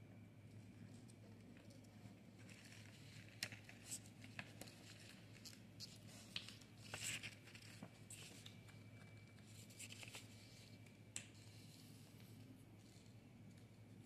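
A sheet of origami paper being folded and creased by hand: faint rustling with scattered sharp crackles, the loudest about three and a half and seven seconds in.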